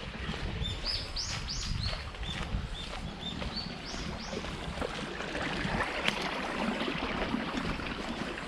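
Water running along a concrete irrigation channel, a steady rushing noise. Over it a bird sings a quick run of high, arching notes that stops a little past halfway.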